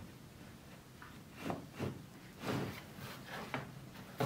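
Wooden strips knocking and scraping against one another and the workbench as they are pushed together by hand: a few soft, short knocks through the middle and a sharper click near the end.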